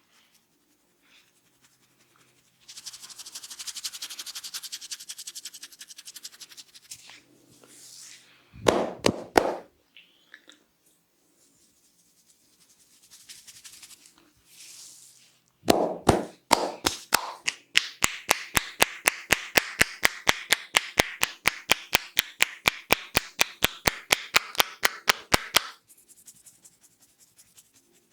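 Head massage by hand: hair rubbed and scratched, a few sharp slaps, then a long fast run of even sharp taps, about five a second, that stops suddenly near the end.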